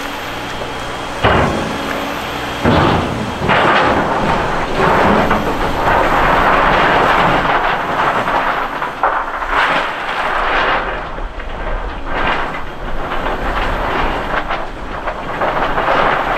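Liebherr LH60 material handler's 3 cubic metre clamshell grab landing in a railway wagon of crushed stone with two sharp knocks about a second and a half apart, then a long crunching and rattling of stone as the grab works through the load. The machine's engine hums low underneath before the first knock.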